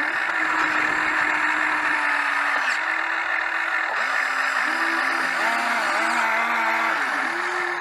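Excavator running under work, with a steady hiss. Its whine rises and falls in pitch in short steps as the machine's movements are worked, changing more often in the second half.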